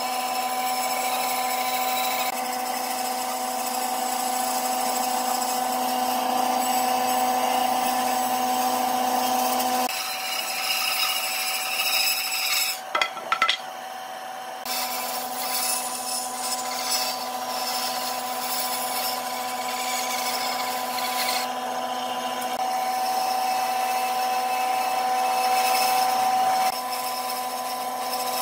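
Electric power tool running steadily against wood, its motor giving a constant hum over the rasp of the work. It stops briefly near the middle, with a few sharp knocks, then runs again.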